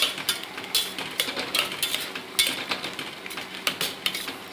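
A spoon stirring spinach and dal in a cooking pot, knocking and scraping against the pot in a quick, irregular run of clicks, a few each second.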